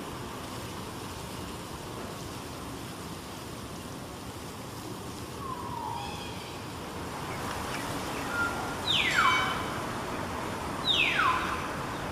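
Common hill mynas calling: a short falling note about halfway through, then two loud, shrill calls about two seconds apart near the end, each sweeping steeply down in pitch. A steady hum of traffic runs underneath.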